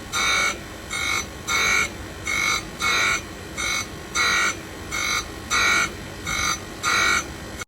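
Tangential chaser grinding machine, its grinding wheel making repeated strokes across a thread chaser. Each stroke gives a short rasping whine, about one and a half strokes a second. The sound cuts off suddenly near the end.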